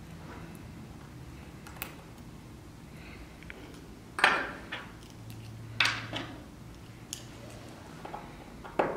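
A small screwdriver working tiny screws out of an iPhone 4S circuit board: a few sharp little metal clicks and scrapes, about four of them, spread over a quiet low hum.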